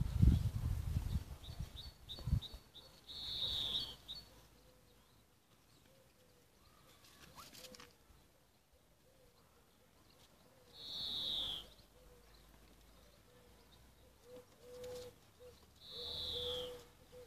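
A bird calling outdoors: a quick run of short high ticks followed by a falling whistle, with the falling whistle repeated twice more, several seconds apart. Muffled low thumps, the loudest sound, come in the first couple of seconds.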